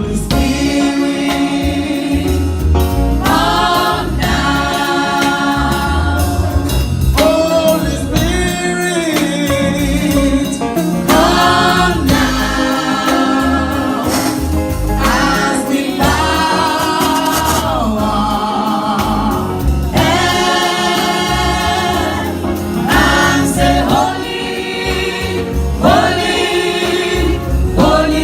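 Gospel music: a choir singing in phrases over a steady drum and bass beat.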